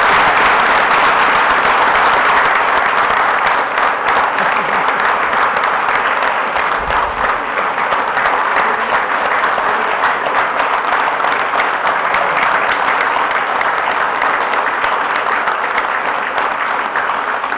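A roomful of people applauding: many hands clapping steadily in a long round of applause that slowly dies down toward the end.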